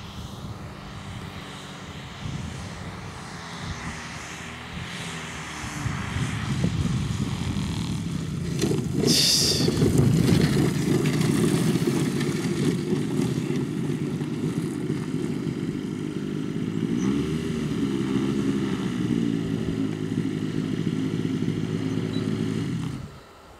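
Four-cylinder two-stroke DLE 222 gas engine on canister mufflers in a 42% Dalton Extra 300 RC aerobatic plane, running at low throttle as it lands and rolls out on grass, growing louder as it comes near, with a brief hiss about nine seconds in. Near the end the engine is cut and stops suddenly.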